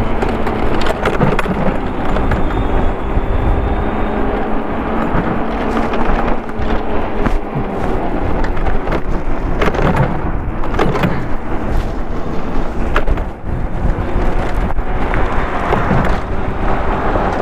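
Wind buffeting the microphone and tyre rumble from a Daymak electric scooter-style e-bike riding along a paved road, with scattered knocks and rattles from the bike over bumps.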